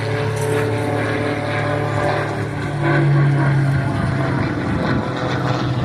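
Propeller airplane engine droning steadily, a low hum that swells slightly about three seconds in.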